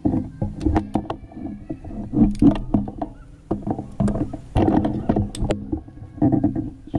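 Irregular clicks, knocks and rustling of handling noise throughout, busiest about two and a half and five seconds in.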